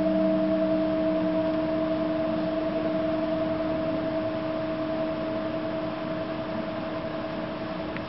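A long held ringing tone, steady in pitch and slowly fading, of the kind a struck gong or singing bowl gives; a lower tone under it dies away in the first second and a half.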